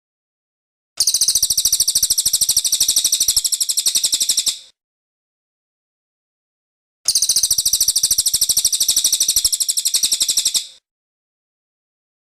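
Cililin bird singing in full voice: two bursts of a fast, high-pitched trilling chatter, each about three and a half seconds long, with a pause between them.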